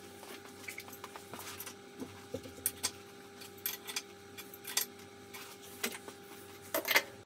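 Scattered light metallic clicks and clinks as a metal rod is worked out of the leveling-foot hole in a milling machine's cast base, over a faint steady hum.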